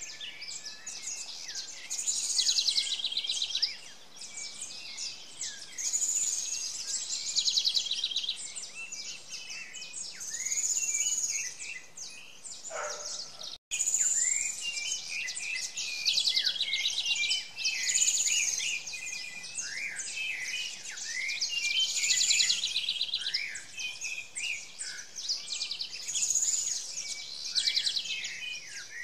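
A chorus of small songbirds chirping and trilling in quick, high-pitched phrases that keep overlapping. The sound cuts out abruptly for a split second about halfway through, then the chorus goes on.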